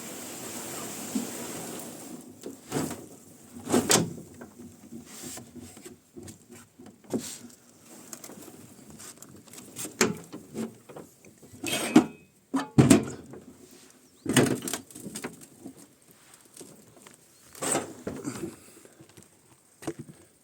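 Wooden rowboat gear being handled: a last brief swish of water, then irregular knocks and creaks of the oars and oarlocks, with the loudest knocks about 13 and 14 seconds in.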